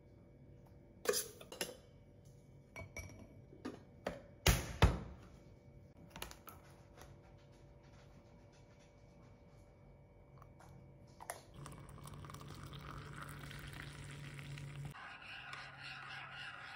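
A metal spoon clinking against a Milo tin and a ceramic mug while powder is scooped in: a few sharp clinks in the first five seconds, the loudest just before five seconds in. From about twelve seconds the spoon stirs the drink in the mug, a steady swirling scrape.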